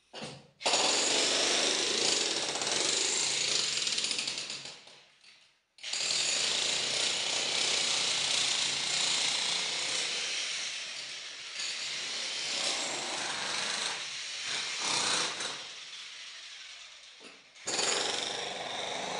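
Power tool cutting into concrete: a loud, rough, grinding noise that stops for a moment about five seconds in, then runs on, dies away and starts up again near the end.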